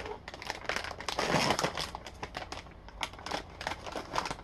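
Plastic cookie bag crinkling as it is handled and a hand reaches in for the small coconut cookies, loudest a little over a second in.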